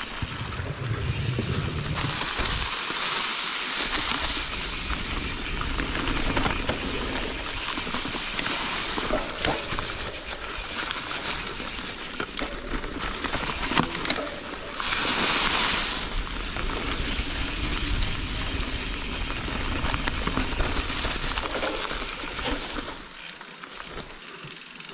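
Canyon Strive enduro mountain bike riding down a forest dirt trail, heard from a GoPro worn by the rider: steady noise of tyres rolling over dirt and leaves, with many small clicks and knocks from the bike rattling over bumps and roots, over a low rumble. A louder hiss lasting about a second comes roughly fifteen seconds in.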